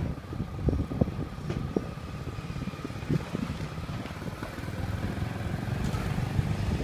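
Vehicle engine running steadily as it is driven along a street, with a low rumble and a faint steady whine, and a few light knocks in the first couple of seconds.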